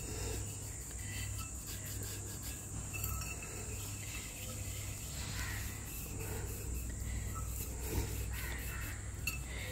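Faint wet rubbing of a lemon half scrubbing a tarnished brass bowl coated with dish-bar paste. Under it run a steady high-pitched whine and a low hum.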